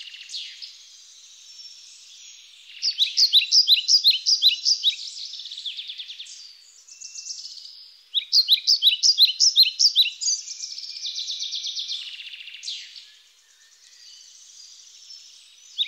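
Birds chirping in bouts of rapid, high, down-sliding chirps, about 3 and 8 seconds in, with thinner trills in between and no low sound at all.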